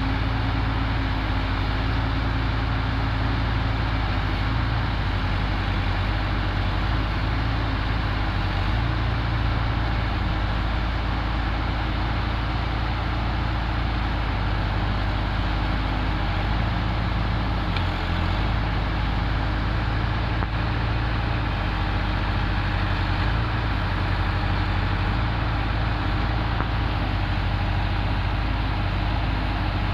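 Heavy diesel machinery running steadily, a continuous low engine drone with little change in pitch or loudness.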